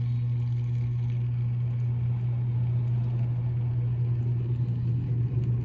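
A steady low hum that holds the same pitch throughout.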